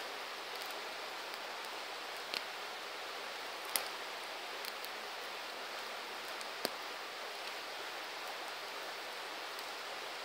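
Campfire burning with a steady hiss, broken by a few sharp pops of crackling wood, a second or more apart.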